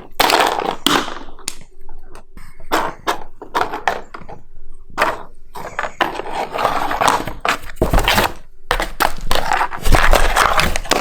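Packaging being handled and torn open: irregular crinkling and rustling, with knocks and thumps, a couple of heavier ones near the end.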